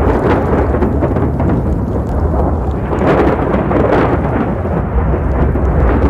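Storm noise: a loud, continuous low rumble of wind with rain, swelling for a moment about three to four seconds in.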